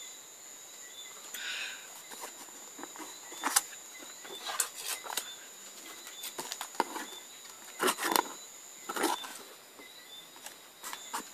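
Cardboard box sealed with clear packing tape being handled and opened: irregular crackles, rustles and sharp snaps of tape and cardboard, with the loudest bursts a few seconds in and again just past the middle.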